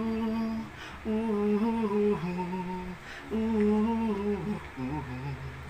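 A man humming a slow melody in long held notes, in four phrases, the last one dropping lower.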